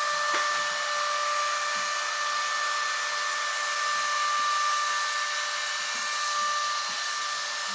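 An electric motor running steadily, a constant hiss with a high even whine, like a vacuum or blower.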